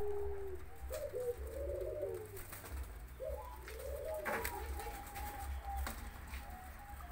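Caged zebra doves (perkutut) cooing: two rolling coo phrases that rise and fall over about a second each, followed by a series of shorter held coo notes. A few sharp clicks are heard along with it.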